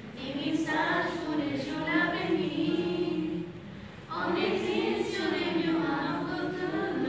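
A group of young students singing together as a choir, in two long phrases with a short pause for breath about three and a half seconds in.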